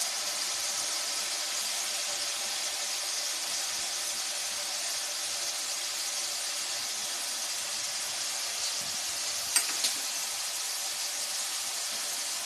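Onion paste frying in hot oil in a pan: a steady sizzle, with two short clicks a little after nine and a half seconds in.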